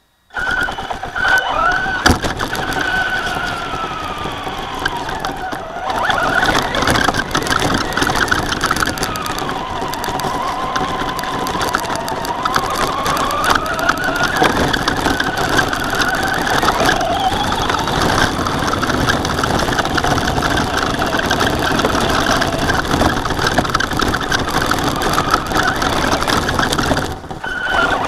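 Slash RC short-course truck heard from a camera mounted on it: its motor and gears whine, rising and falling in pitch as it speeds up and slows, over a constant crunching of tyres on gravel and ground.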